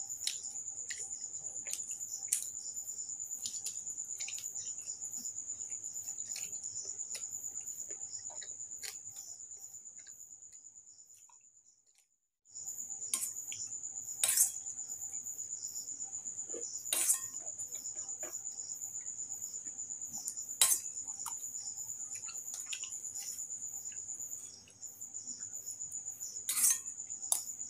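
Crickets trilling steadily in a high, fast pulsing chirp, which cuts out briefly in the middle. Over it come small eating noises and, in the second half, a few sharp clinks of a steel spoon against a steel bowl.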